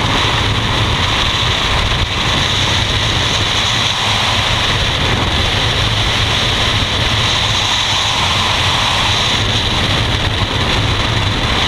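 Freefall wind rushing steadily over a skydiver's body-worn camera microphone, an even, unbroken roar.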